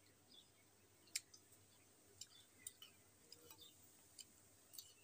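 Quiet eating: a metal spoon clicking faintly against a small steel bowl, a handful of scattered clicks with the sharpest about a second in, between soft chewing sounds.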